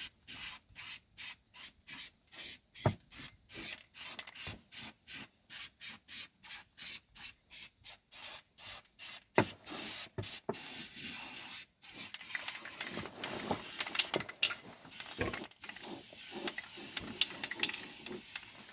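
Aerosol can of Rust-Oleum rubberized undercoating spraying in rapid short bursts, about three a second, then in a longer, more continuous hiss for the second half. The can is nearly empty.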